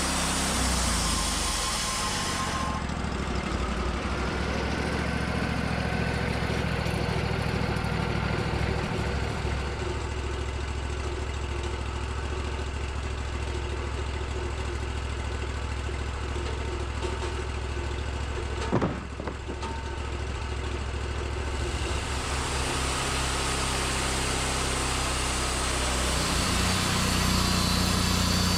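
Portable sawmill's engine running steadily, its hissy upper edge fading about three seconds in and coming back near the end, with one sharp knock about two-thirds of the way through.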